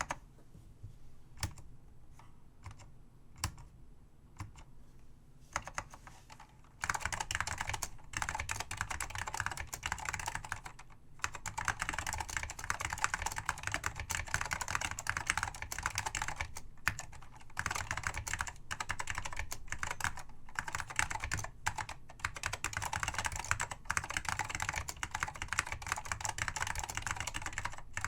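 Apple M0116 keyboard with Alps SKCM Salmon switches being typed on. A few scattered single keystrokes come first, then from about seven seconds in there is fast, continuous typing broken by a few short pauses.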